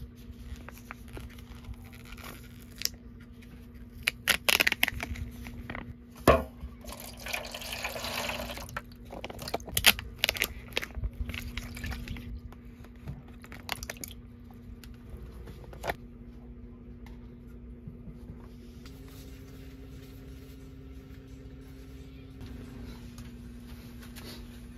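Liquid poured from a plastic pouch into an aluminium foil container, a splashing pour lasting about two seconds in the middle, amid sharp clicks and rustles of handling.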